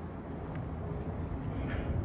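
Low, uneven rumble of wind on the microphone during a walk, with a few faint footsteps on brick pavement.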